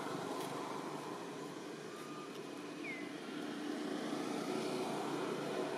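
Steady background hum of distant engine traffic, with two brief high falling squeaks about three seconds apart.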